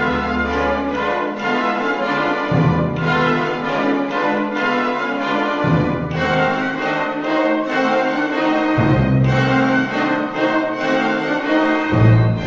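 Symphony orchestra playing: violins and other bowed strings over sustained chords, the bass moving to a new note about every three seconds.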